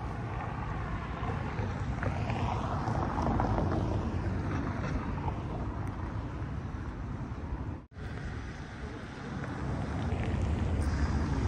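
Outdoor town ambience picked up while walking: a steady noise with a heavy low rumble, no distinct events, breaking off for an instant about eight seconds in.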